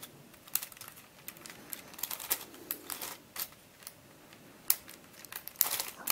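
Plastic pieces of an MF8 Radiolarian 2 twisty puzzle clicking and clacking as its faces are turned by hand into jumbled, shape-shifted positions. The clicks come irregularly, with a quick cluster near the end.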